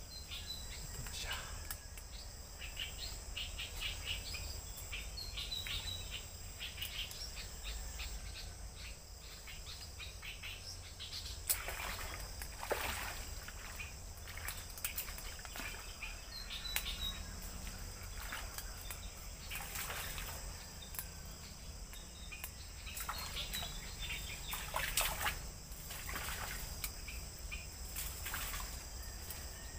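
Steady high-pitched insect drone with birds chirping now and then, over a low rumble, broken by a few brief rustles and clicks.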